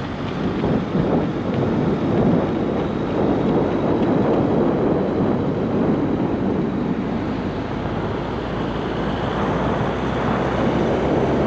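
Steady wind rushing over a microphone held out of a moving car's window, mixed with the car's road noise.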